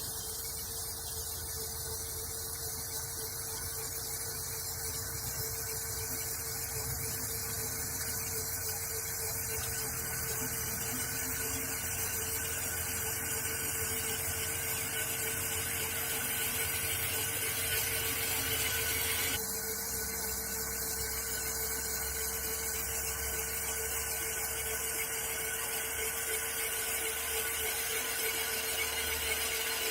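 Electric motor of a Krot cultivator, fed through a frequency converter, running steadily with a high whine while its tines till the soil. The lower rumble changes suddenly about two-thirds of the way in.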